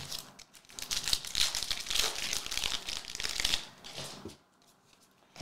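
Shiny foil wrapper of a hockey card pack being torn open and crinkled, a dense crackling that stops about four seconds in.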